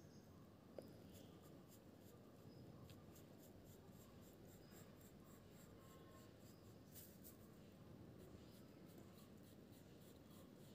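Faint scratching of a pencil drawing on sketchbook paper, in a quick run of short strokes, with a small click about a second in.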